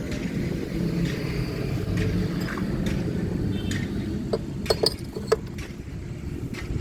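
A steady low rumble of a vehicle engine running in the background, with a few sharp metal clinks a little past the middle as scooter transmission parts are handled during reassembly.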